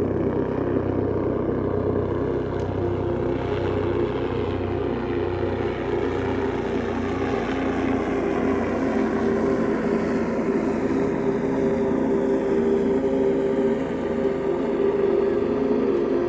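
Steady engine drone with several held humming tones, unbroken throughout.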